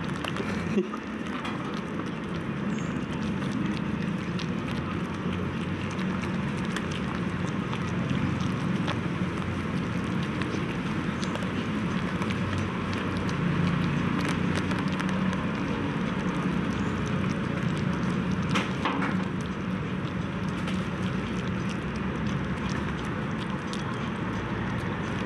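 Puppies eating rice from a plastic plate: continuous small wet smacking and lapping clicks, over a steady low rumble in the background.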